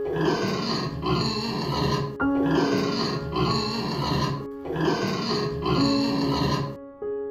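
A pig grunting over background piano music. The same stretch of rough grunts comes three times in a row, about two seconds each, and stops abruptly near the end.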